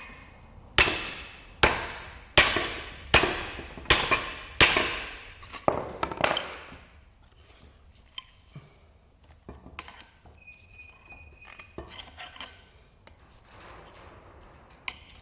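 Hammer blows on the steel centre sleeve of a leaf-spring eye bush, about eight ringing metal strikes a little under a second apart, then quieter taps and clinks. The rubber still bonds the centre, which is not expected to knock out without heating it first.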